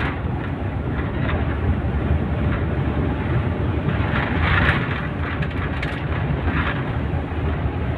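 Steady low rumble of engine and road noise heard from inside a moving vehicle, with a couple of brief hissing rushes about halfway through and again a little later.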